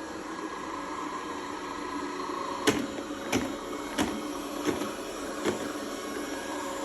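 Robot vacuum cleaner running with a steady motor hum. Midway through come five sharp knocks, a little under a second apart.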